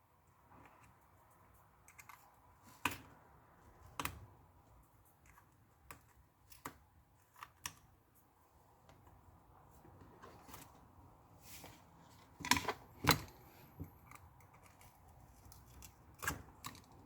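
Scattered sharp clicks and taps of small hand tools against an iPad's frame during screen repair, irregular, with a few louder knocks.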